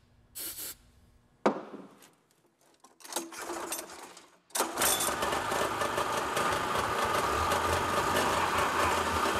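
Polaris twin-carburettor two-stroke snowmobile engine being pull-started on its first start after long storage: a short hiss of starting-fluid spray, a couple of pulls on the recoil starter, then the engine catches about four and a half seconds in and runs steadily.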